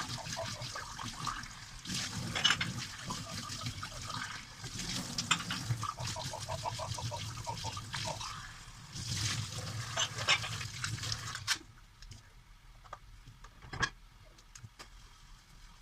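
Tap water running and splashing while dishes are hand-washed, with light clinks of the dishes. The water stops about three-quarters of the way through, leaving a few soft knocks.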